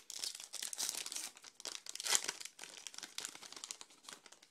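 A Topps Archives baseball card pack's wrapper being torn open and crinkled off the stack of cards. The crackling is dense, peaks about two seconds in and dies away near the end.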